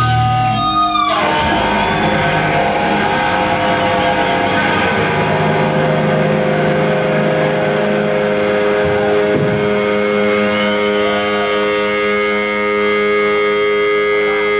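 Live rock band's electric guitar holding notes. About a second in, the held notes slide down in pitch, then give way to a dense, noisy wash of guitar with long steady tones ringing on.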